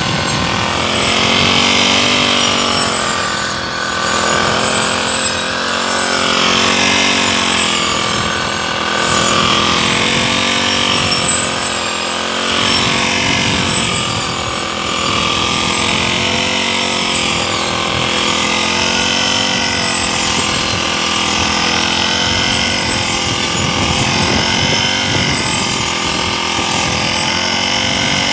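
Brush cutter engine running under load as its blade swings through tall grass, its pitch rising and falling every couple of seconds.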